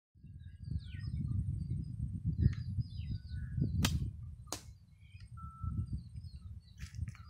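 Bow shot: a sharp snap as the bowstring is released, then less than a second later a second sharp crack as the arrow strikes the grass-bale target. Small birds chirp over a low rumble on the microphone.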